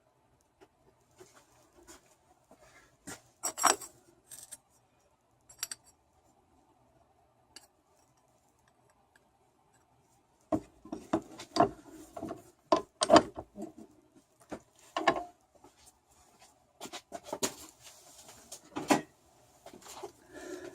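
Metal pieces and tools handled on a workbench: scattered clinks and knocks, then a busier run of clattering about halfway through.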